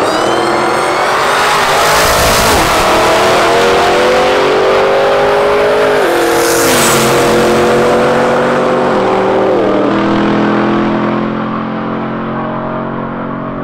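Pickup truck's engine at full throttle down a drag strip, climbing in pitch and dropping at three gear changes, about 2.5, 6 and 10 seconds in, then fading as it pulls away.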